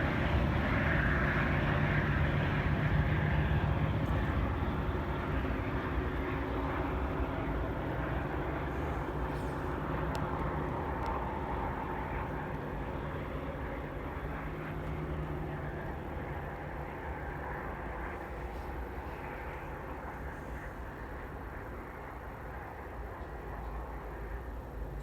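Diesel commuter train passing and pulling away, its engine and wheel rumble slowly fading.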